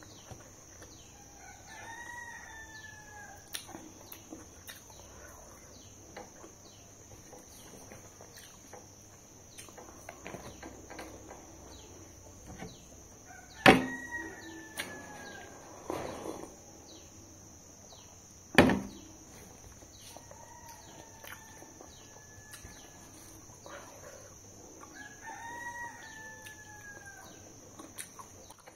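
A rooster crowing four times in the background, each crow about a second long, rising then falling. Two sharp knocks, the loudest sounds, come about halfway through and a few seconds later.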